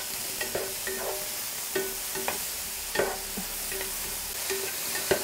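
Diced mushrooms sizzling gently in olive oil in a frying pan on low heat, with a spatula scraping and tapping irregularly against the pan as they are stirred.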